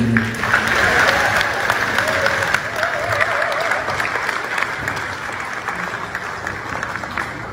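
Audience applauding, the clapping gradually dying down.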